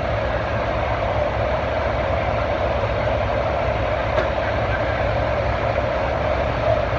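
Farm pulling tractor's engine running loud and steady, heard across the pulling grounds.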